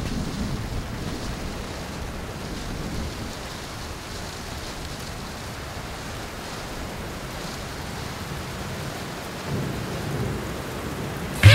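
Steady rain with low thunder rumbling, swelling briefly about ten seconds in. A loud warbling tone cuts in abruptly at the very end.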